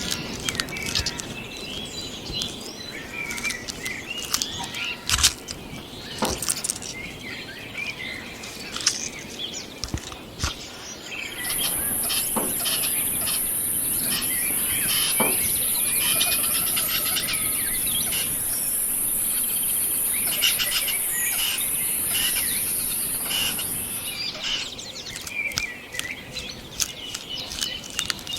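Outdoor nature ambience with birds chirping and scattered clicks and rustles. From about twelve seconds in, an insect's steady high-pitched buzz comes in for roughly twelve seconds and is the loudest sound, then stops.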